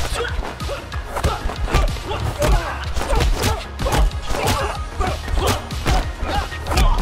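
Fight-scene soundtrack: music with a heavy low beat, overlaid with rapid punch and strike impact thuds, several a second.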